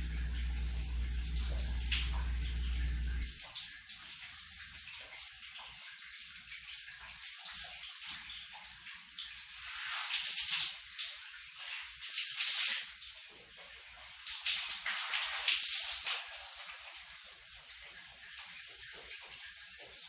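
Shower spray running in a small bathroom, a steady hiss of water that swells louder several times. A low hum cuts off suddenly about three seconds in.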